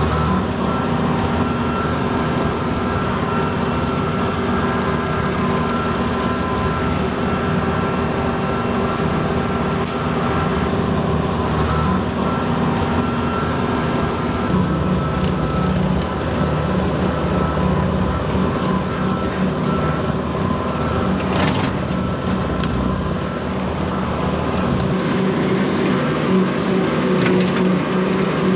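Tractor engine running steadily while bush hogging, with a rotary cutter working the overgrown field.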